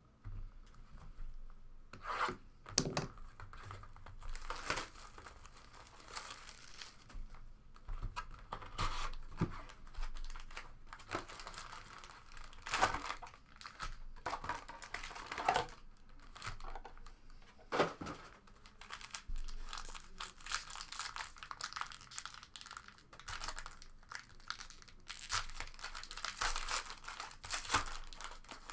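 Packaging of a box of basketball trading cards being torn open by hand: repeated tearing and crinkling of plastic wrap and pack wrappers, with scattered sharp clicks.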